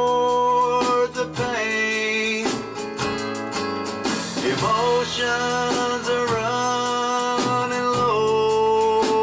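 Country band playing a song: electric bass under a lead line of long held notes that slide and bend between pitches.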